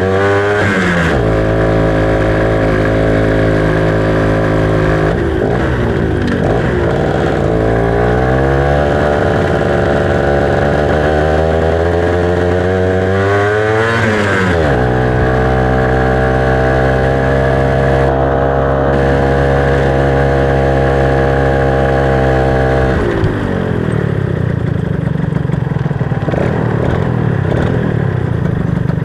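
Yamaha SS Y110 two-stroke motorcycle engine running under way, its pitch rising and falling with the throttle. It climbs, drops sharply about fourteen seconds in, holds steady, then falls away to a lower, rougher sound about twenty-three seconds in as the throttle closes.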